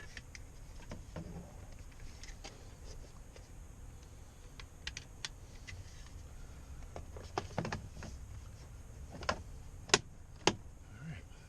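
Scattered light clicks and taps of small parts being handled and fitted on a truck door, with two sharper knocks near the end.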